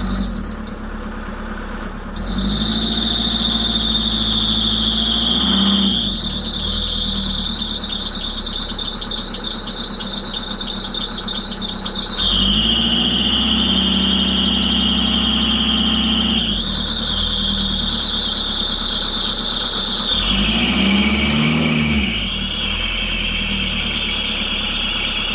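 High-pitched squeal from a 2021 Fiat Ducato shortly after a cold start, sounding over the steady engine idle. The squeal holds a tone for several seconds at a time, then jumps up or down in pitch. It is a puzzling noise that appears only for about a minute after a cold start; its cause is unknown.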